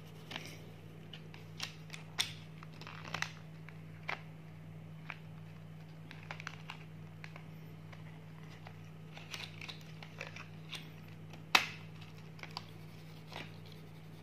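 Small scattered clicks, taps and rustles of colouring pencils and a cardboard box of colours being handled on a table, with one sharper click about eleven seconds in, over a steady low hum.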